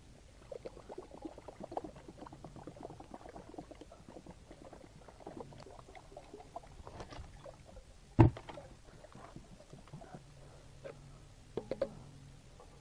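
Automatic transmission fluid poured from a jug through a plastic funnel into a hydraulic reservoir, running for about seven seconds. A sharp knock follows about eight seconds in, and a few light clicks come near the end.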